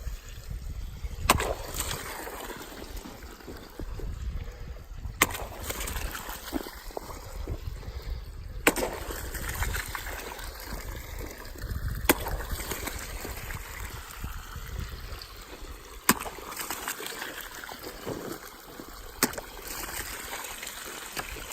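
Irrigation water trickling and splashing as it runs from the ditch into the field rows, with a sharp knock every few seconds.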